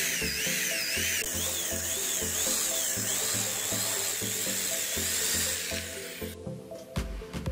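Electric hand drill boring out the metal rivets of a plastic saw handle: a high whine that wavers up and down in pitch, stopping about six seconds in, followed by a few clicks. Background music with a steady beat runs underneath.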